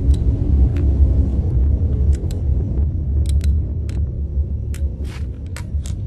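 A loud, steady deep rumble: the unexplained 'estruendo' recorded at night, with scattered sharp ticks over it. It eases a little near the end.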